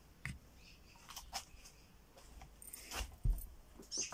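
A few scattered light clicks and rustles of handling, with a low thump about three seconds in.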